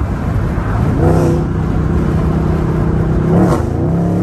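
Dodge Charger Scat Pack's 392 HEMI V8 accelerating. The engine note climbs about a second in and holds steady, then drops back briefly near the end.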